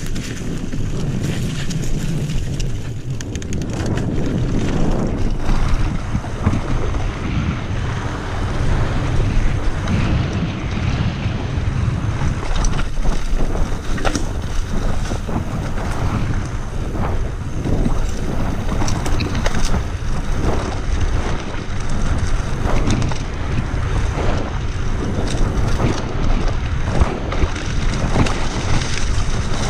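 Wind rushing over the camera microphone over the running noise of a Trek Remedy 7 full-suspension mountain bike descending a trail, with frequent short knocks and rattles from the bike over rough ground.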